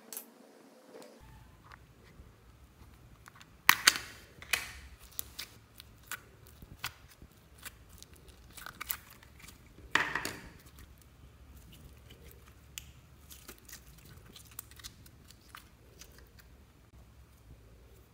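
Hands squishing and pressing slime, giving scattered sticky clicks and crackles, with two louder squelching clusters about four seconds in and around ten seconds.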